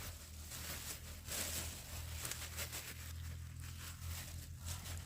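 Irregular rustling and crinkling handling noises over a steady low hum.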